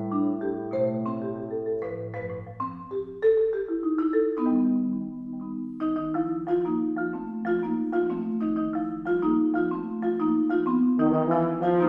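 Concert marimba playing unaccompanied: low notes held as rolls under quick struck notes and chords, each ringing briefly and fading.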